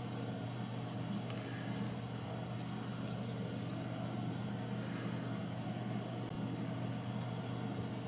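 A steady low electrical hum, with faint scattered ticks and rustles of fingers working tying thread and a feather onto a hook held in a fly-tying vise.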